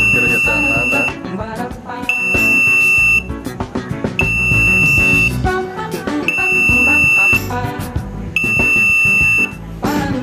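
Music with a loud, high electronic beep over it. Each beep is a steady tone about a second long, repeating every two seconds, five times.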